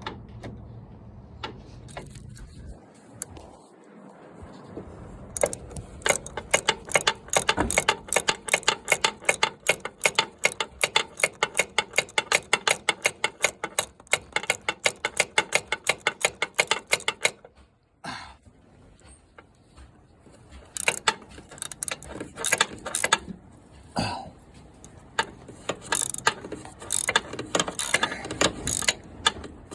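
Hand socket ratchet clicking in long rapid runs as it drives a steering gear box mounting bolt into the truck's frame rail, with a short pause about two-thirds of the way through before the clicking resumes.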